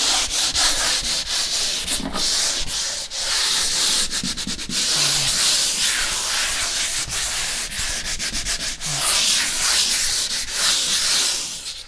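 Folded 150-grit sandpaper rubbed by hand over a painted wall in a quick prep pass to knock down old roller nap and dried paint bumps. It makes a steady scratchy rub, broken by many brief gaps as the strokes change direction.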